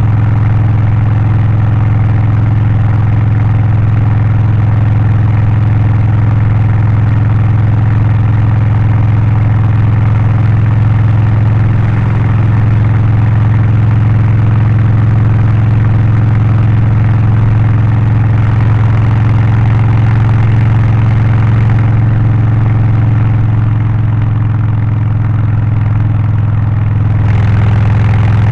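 Harley-Davidson Low Rider ST's Milwaukee-Eight V-twin with a Stage 1 exhaust, air filter and remap, running steadily at an even speed. It eases off slightly about three-quarters of the way through, then picks back up near the end.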